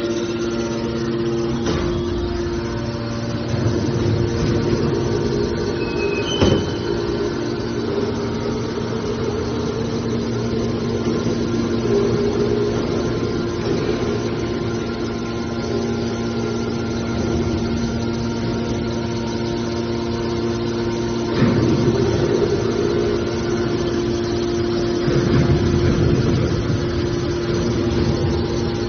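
Hydraulic metal baler running, its power unit giving a steady hum. A sharp knock comes about six and a half seconds in, and twice later the sound swells into louder, rougher rumbling stretches as the machine works.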